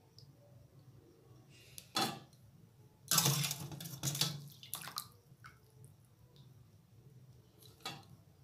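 Water splashing and dripping as blanched broccoli is scooped out of hot water with a wire skimmer and tipped into a plastic colander. There is a short sharp knock about two seconds in, and the loudest splashing runs from about three to five seconds.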